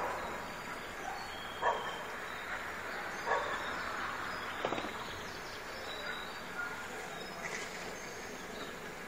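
A dog barking three times, about a second and a half apart, over a steady background hum.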